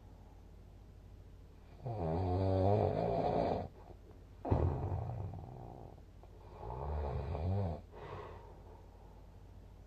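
A sleeping person snoring: three snores, each one to two seconds long, with quieter pauses between them.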